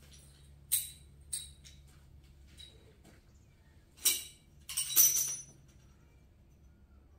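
Loose metal parts clinking and jingling in a few short bursts: two single clinks in the first second or so, then a louder jangling rattle from about four to five and a half seconds in.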